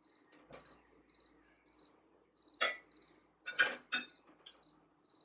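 A cricket chirping steadily outdoors, about two high chirps a second, with two sharp clinks of metal serving utensils against a dish about two and a half and three and a half seconds in.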